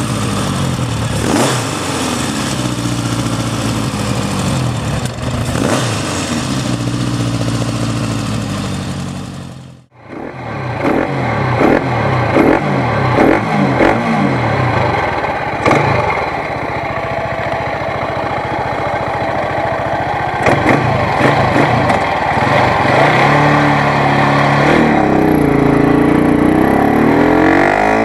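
Motorcycle engine running and being revved, its pitch rising and falling with each blip of the throttle. The sound drops out abruptly about ten seconds in. It comes back with a run of quick revs, settles to a steadier run, and rises again near the end.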